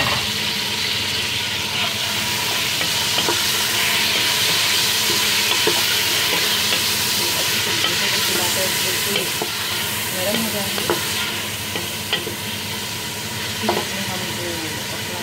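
Tomato pieces and whole spices sizzling steadily in hot oil in a metal pot, stirred with a wooden spoon that knocks against the pot now and then.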